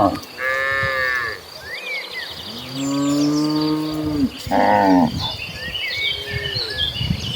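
Cattle mooing: four or five moos of different pitch, the longest and lowest about halfway through. Birds chirp faintly between the calls.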